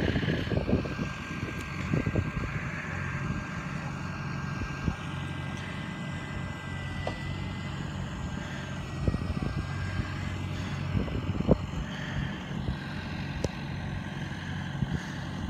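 Farm tractor diesel engine running steadily while a front loader with a bale grab handles wrapped round bales. A steady high whine runs through about the first ten seconds, and a few short knocks come through.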